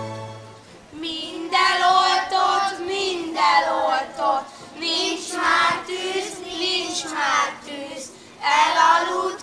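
Group of children singing a song together, coming in about a second in as a held instrumental chord dies away.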